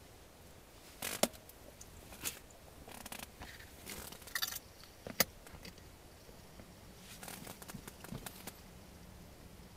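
Scattered light clicks, taps and rattles of small fishing tackle being handled as a multi-hook smelt rig is drawn up out of an ice hole, with two sharper clicks, about a second in and about five seconds in.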